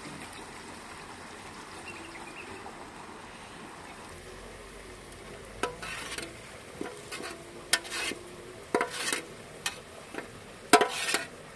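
A metal spoon scraping and knocking against a metal cooking pot as chopped onions are spooned out onto a bowl of rice. It is a series of sharp, irregular scrapes and clinks starting about halfway through, after a few seconds of faint steady background.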